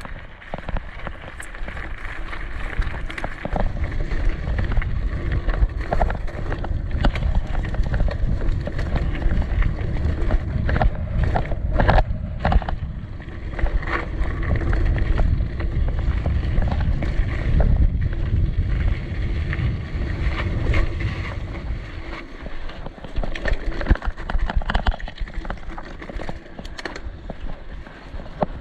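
Downhill mountain bike ridden fast over city pavement: wind buffeting the camera microphone and tyre rumble, with many rattles and knocks from the bike over bumps, busiest about halfway through.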